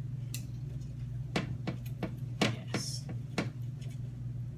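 Knife knocking on a cutting board while slicing cooked chicken: about eight irregular sharp taps, over a steady low hum.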